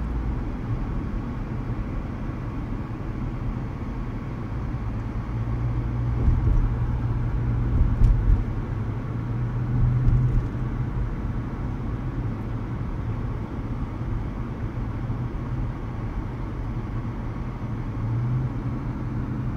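Steady engine and road rumble heard inside a car's cabin while driving, swelling a few times midway.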